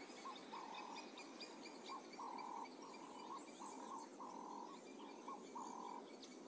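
Faint wild ambience of short croaking calls repeated about twice a second, with thin high chirps behind them.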